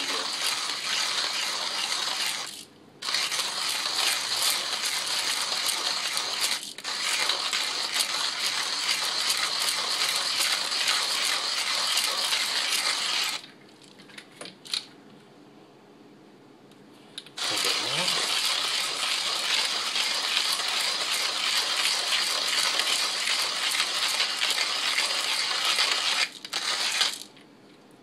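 Hario Mini Mill Slim hand burr grinder being cranked, its ceramic burrs crunching coffee beans at a fine espresso setting: a steady gritty crunching. It stops briefly about three seconds in and again near the end, with a pause of about four seconds in the middle.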